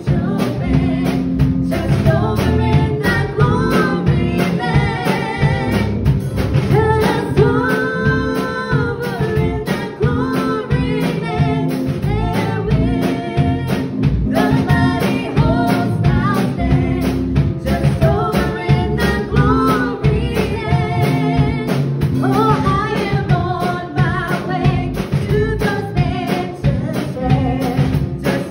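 Two women singing a gospel song together into microphones over an instrumental backing with a steady beat.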